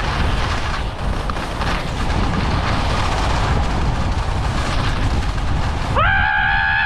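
Fast descent down an icy ski slope: wind buffeting the camera microphone over the steady rush of edges scraping across hard snow. Near the end a person lets out a high, held scream for just under a second.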